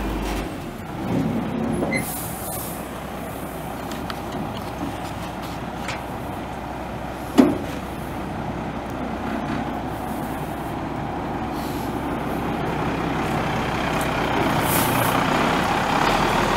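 International DT466 7.6-litre inline-six turbo diesel of a 1992 International 4900 dump truck running steadily, with one sharp, brief sound about seven seconds in and the sound slowly growing louder toward the end.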